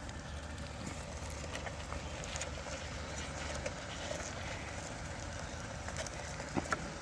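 Small twig fire crackling with scattered light pops and a sharper pair of cracks near the end, over a steady sizzle of bacon frying in a pan.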